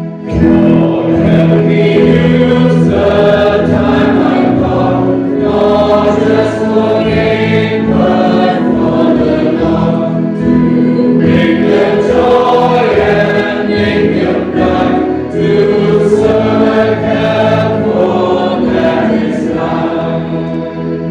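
A congregation singing a hymn together with organ accompaniment.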